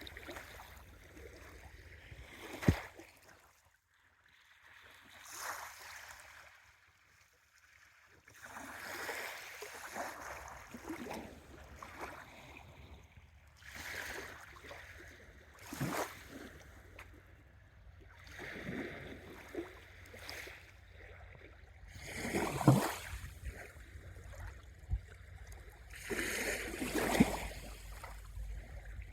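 Small sea waves washing in on the shore in irregular swells a few seconds apart, a few ending in a sharper splash, with a quieter lull early on and a low wind rumble near the end.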